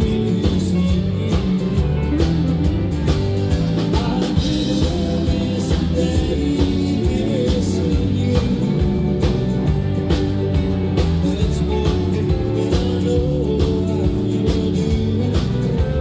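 A live country band playing, with drums, electric guitar, bass guitar and keyboard, and a man singing.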